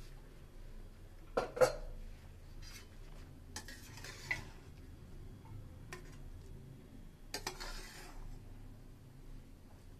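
Two sharp metal clanks about a second and a half in as the pressure cooker's lid is set down, then a metal spoon scraping and scooping cooked rice in the cooker pot and serving it onto a steel plate, twice.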